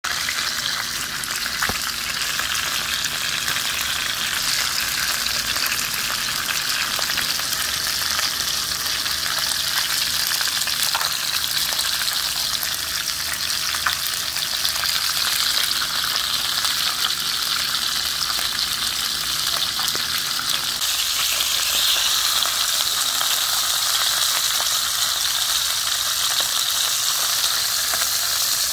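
Yellow croaker and split mackerel pan-frying in hot oil in a frying pan: a steady sizzle full of fine crackles from spattering oil.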